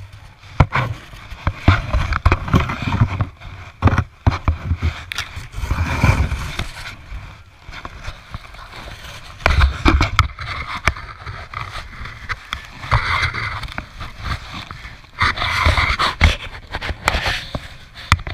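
A small plastic snow shovel scraping and scooping snow, with crunching snow and irregular knocks. Jacket and mitten rustle rubs close against a body-worn camera.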